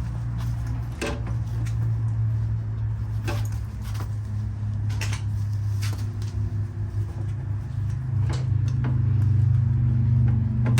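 Scattered metallic clicks and clinks of hand tools working a battery cable terminal loose, over a steady low hum.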